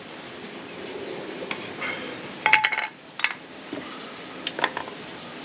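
A few light taps and clicks: a quick cluster about two and a half seconds in, then single ones. This is the cedar bow drill hearth board being tapped to knock the smoking charred wood dust out of the notch, once the drilling has made smoke.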